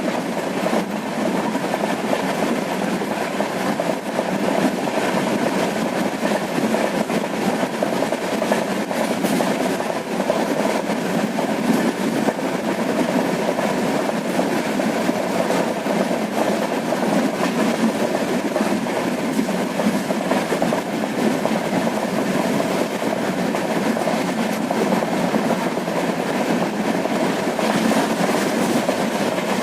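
Steady running noise of a moving train: wheels rumbling on the rails with a light rattle of small clicks throughout.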